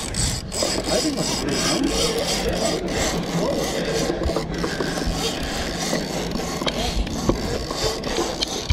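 Rubbing and scraping handling noise from a big-game fishing rod and reel being worked while fighting a fish, with the reel winding, over a steady low rumble.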